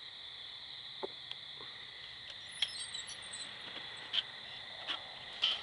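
Steady chorus of night insects, crickets chirring in a continuous high drone. A few short taps and clicks fall through it, the loudest near the end.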